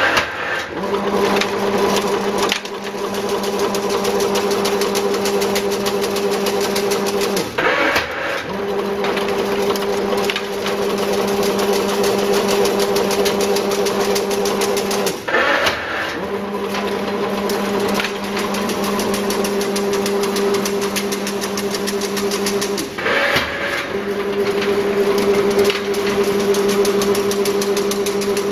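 HT-8000 chain link fence weaving machine running, a steady motor hum under a fast, even clatter. About every 7 to 8 seconds the hum cuts out for about a second with a brief sharper noise, then starts again, three times in all.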